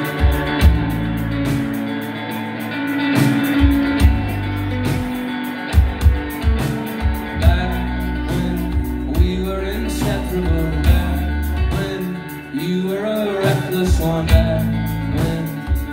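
Live rock band playing an instrumental passage: electric guitars, bass guitar and a drum kit, with regular drum hits.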